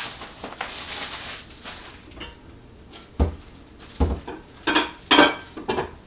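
Irregular handling noises: a soft rustle at first, two dull thumps about three and four seconds in, then three quick clattering knocks near the end.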